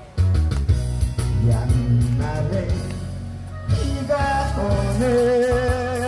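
Live amplified song: a man singing through a PA speaker over guitar and a steady beat, holding a long note with vibrato near the end.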